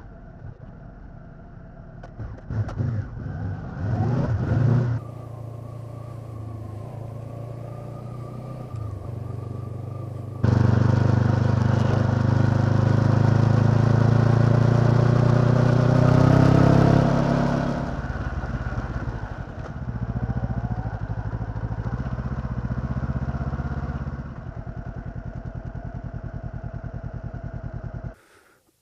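Honda CB500X's parallel-twin engine under way, its pitch rising as it accelerates twice, then running steadily at lower revs before it cuts off abruptly near the end.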